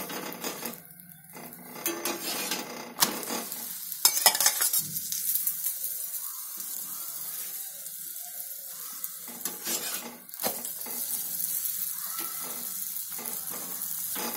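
Oil sizzling under a stuffed masala paratha frying on a hot black tawa, with a metal spatula scraping and pressing it against the pan. Several sharper scrapes and knocks of the spatula come through, the loudest about four seconds in.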